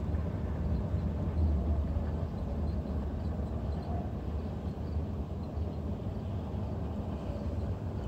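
Steady low rumble of a Ford F-450 pickup's engine running as the truck drives slowly at a distance.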